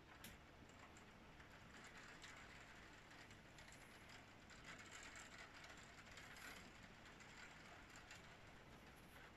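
Faint, steady rain with small scattered ticks of drops striking the window glass and sill.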